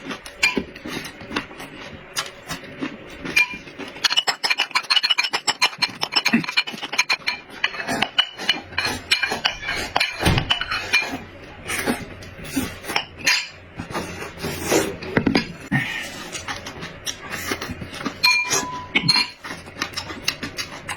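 Eating at close range: utensils clinking against bowls and plates, with a run of quick, close clicky mouth noises in between and a few short ringing clinks of dishware.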